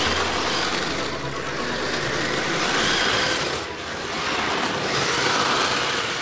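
1:10 electric RC drift car drifting on a concrete floor: a steady hiss of tyres sliding, with the electric motor's whine rising and falling as the throttle is worked.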